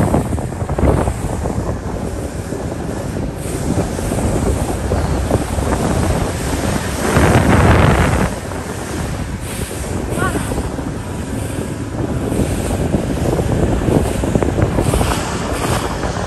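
Wind buffeting the microphone in gusts over a steady rush, with the strongest gust about seven to eight seconds in.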